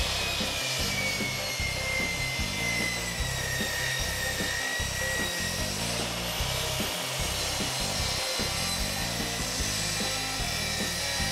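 Sliding compound miter saw running and crosscutting plywood, a steady saw noise with a motor whine that sinks slowly in pitch over the first few seconds as the blade is pulled through the cut.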